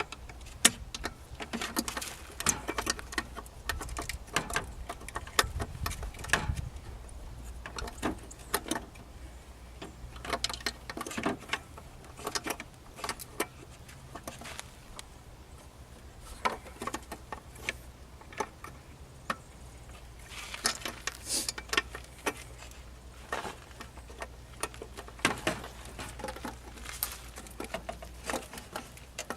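Irregular plastic clicks, knocks and rattles of a headlight bulb and housing being pushed and twisted by hand as a stubborn fit is forced into place, over a steady low hum.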